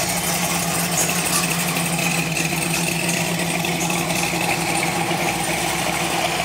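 A car engine idling steadily, with an even, unchanging hum.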